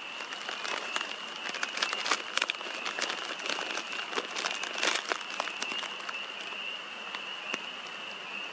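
Irregular crackling and crunching clicks close to the microphone, thickest from about two to five seconds in, over a steady high-pitched whine.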